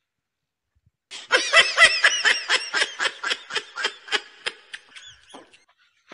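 A burst of high-pitched laughter, a rapid ha-ha-ha of about four pulses a second, starting about a second in and fading away over some four seconds.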